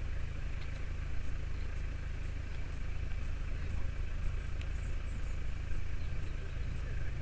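Off-road vehicle engine running with a steady low rumble, with a few faint clicks and knocks.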